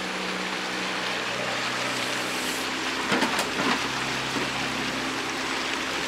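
Motorboat engine running steadily under way, with the rush of water and wind over it. A few short clicks about three seconds in.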